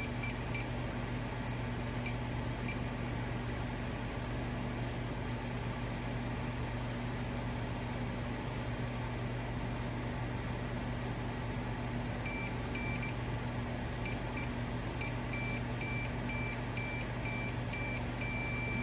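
Steady electrical mains hum with short, high-pitched electronic beeps in an irregular broken series, a few near the start and many more in the second half.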